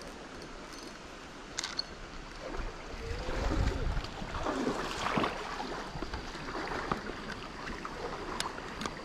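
Shallow creek water running over rocks, with splashing and a few sharp clicks from gear being handled.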